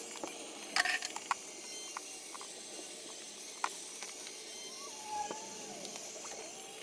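Handheld gas blowtorch hissing steadily as its flame chars a wooden cupboard top, with a few sharp clicks about a second in and another about halfway through.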